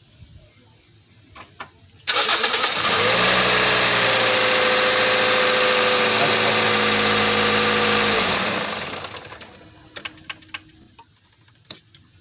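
Toyota 1NZ-FE 1.5-litre four-cylinder engine cranked by the starter and catching about two seconds in, idling steadily for about five seconds, then switched off and running down. It is run briefly after a coolant refill to see whether the radiator level drops.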